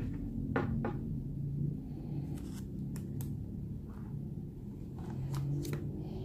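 Plastic sleeve pages of a ring binder being turned over, with light crinkling and a handful of sharp clicks and taps, over a low steady hum.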